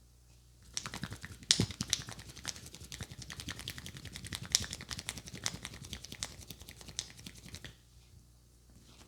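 Rapid hand-tapping head massage: a fast, dense run of sharp taps and clicks from the barber's hands striking the head, with a few louder strikes, beginning about a second in and stopping suddenly near the end.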